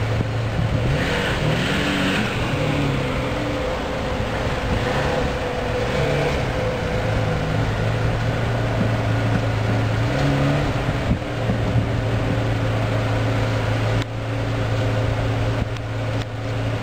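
Ferrari 456 M's V12 engine running at low speed as the car manoeuvres, with a short rise and fall in revs about a second or two in, then a steady idle-like note.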